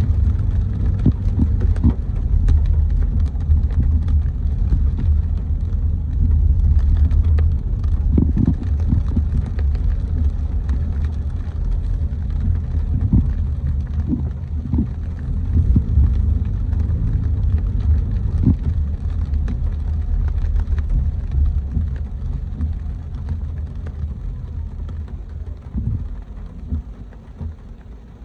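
Car driving on a wet city street: a steady low rumble with scattered light taps, growing quieter over the last few seconds.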